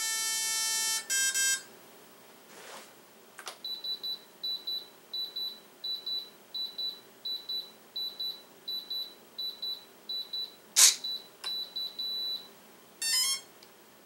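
Electronic beeps from an RC plane's electronics and radio transmitter during binding: two pitched tones as the battery is connected, then a steady series of short high beeps about every 0.6 s with a few sharp clicks, and a quick rising run of tones near the end.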